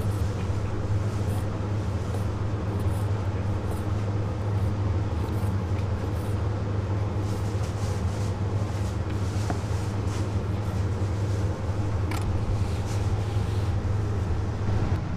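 A steady low mechanical hum, with faint knife cuts and taps on a wooden cutting board as braised pig's trotter is sliced.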